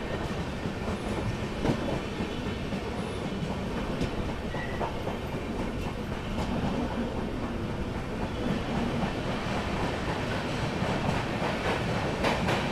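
Passenger train running through a station without stopping, heard from a coach doorway: a steady rumble of wheels on rail with occasional clicks, growing a little louder near the end.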